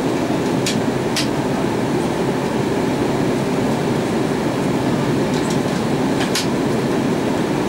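Steady cabin noise of an Airbus A320-232 in flight, heard from a window seat over the wing: a dense low rumble of airflow and its IAE V2500 turbofan engines. A few short clicks come in the first second or so and again about six seconds in.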